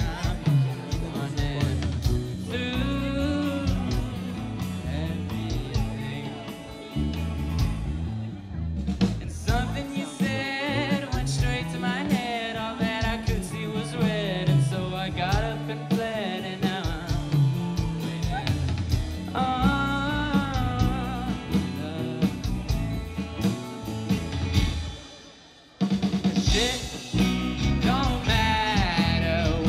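Live rock band playing: a sung lead vocal over electric guitars and a drum kit. About four seconds from the end the band drops away almost to nothing, then crashes back in louder.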